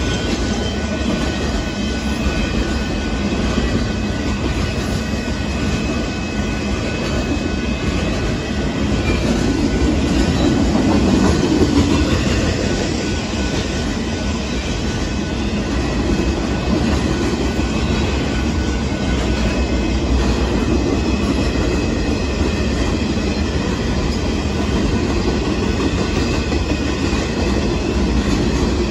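Union Pacific freight train of boxcars rolling past a grade crossing: a steady rumble and clatter of wheels on rail, swelling a little about a third of the way through.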